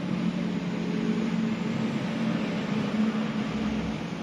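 Steady background noise, an even hiss with a low constant hum beneath it.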